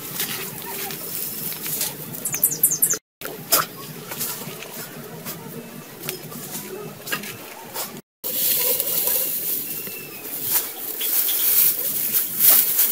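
Leafy branches and dry grass stalks rustling and crackling as they are handled, with a quick run of high bird chirps about two and a half seconds in.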